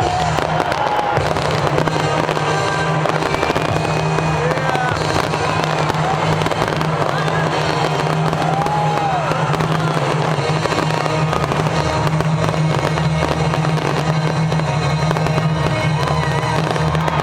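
Fireworks exploding in a continuous barrage of bangs and crackling, with music playing over stadium loudspeakers and crowd voices underneath.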